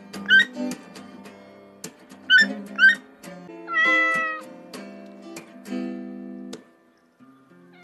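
Acoustic guitar music playing, with a domestic cat meowing once, a long meow about four seconds in. Before it come short high calls in pairs.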